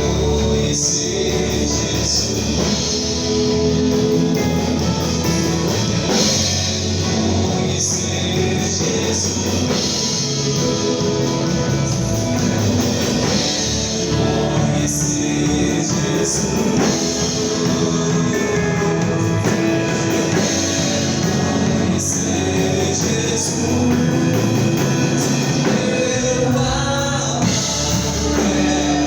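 Live gospel worship band playing a song with singing over drum kit and other instruments, steady and continuous.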